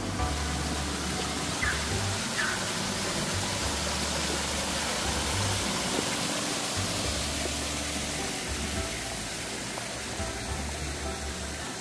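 Water from a small fountain spilling in a thin sheet over a stone wall onto the paving and into a drain grate: a steady rushing splash. Background music with a low bass line plays underneath.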